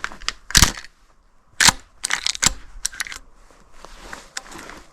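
The pump action of a Winchester 1897 shotgun being worked: a string of sharp metal clacks as the slide is racked and mini shells are lifted from the magazine tube. The two loudest clacks come about half a second and a second and a half in.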